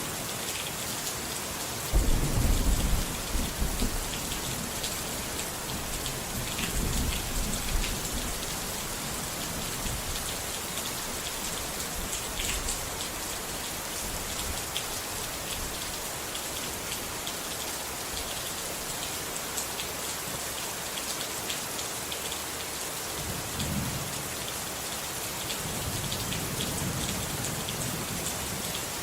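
Steady rain with rolling thunder. A loud thunder rumble breaks in suddenly about two seconds in and rolls off over a couple of seconds. A weaker rumble follows around seven seconds, and a longer, softer one comes near the end.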